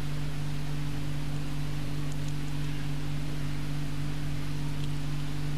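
Steady low hum with an even hiss over it; it holds unchanged at the same level throughout.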